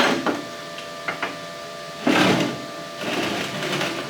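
Welder laying short tack welds on steel, heard as a few brief noisy bursts, the longest lasting about a second near the end, over a steady electrical hum.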